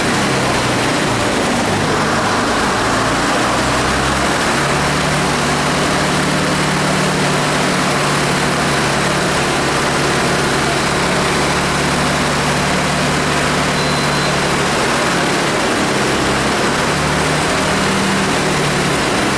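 Diesel engine of a stationary London Transport RT-type double-decker bus idling steadily.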